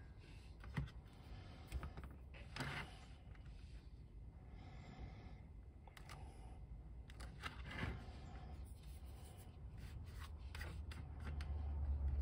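Faint clicks and rubbing of hard plastic toy parts being handled and pressed into place, with a low hum swelling near the end.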